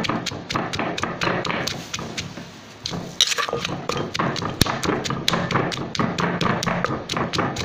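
Wooden pestle pounding in a mortar, a fast run of dull thuds about four a second, crushing long beans, garlic, chillies and peanuts for papaya salad.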